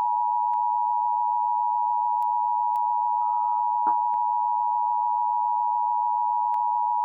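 Emergency Alert System attention signal: the two-tone chord of about 853 and 960 Hz held steady, marking the start of a relayed EAS monthly test message.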